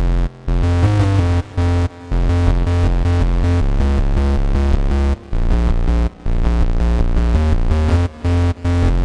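Bass preset on the Integrate virtual analog synthesizer playing a quick, repeating electronic bass line, deep and buzzy, with notes stepping in pitch and a few brief breaks.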